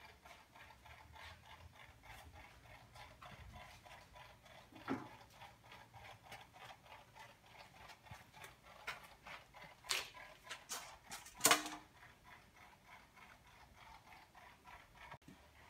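Faint, quick, regular ticking, about three a second, with a few louder sharp clicks or knocks around the middle.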